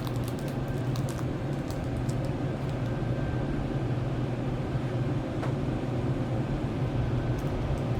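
A steady low hum with a faint even hiss, and a few light clicks here and there.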